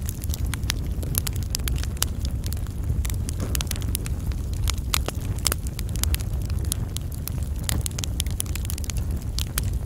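Wood fire burning, crackling and popping with many irregular sharp snaps over a steady low rumble.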